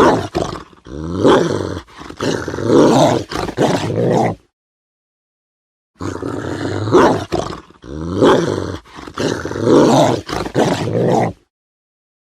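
Large dog growling aggressively in rough, snarling bursts. The same growl recording plays twice with a short silent gap between.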